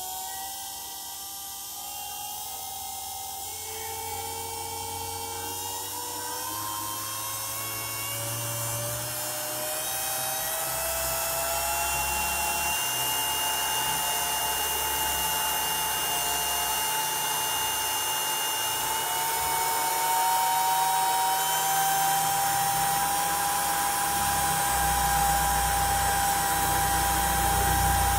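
795 DC motor running with a high whine that climbs slowly in pitch and loudness as it spins up over the first ten seconds or so, then holds at a steady high speed.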